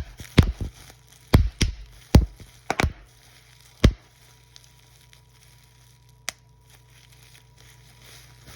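A series of sharp knocks and thumps, about eight in the first four seconds, some in quick pairs, then a single one later on.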